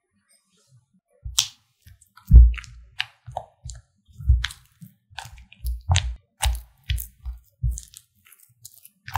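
Silicone spatula stirring and folding a thick cream-cheese mixture in a glass bowl: a run of short squelching scrapes and knocks against the glass, about two a second, each with a low thump, starting about a second in.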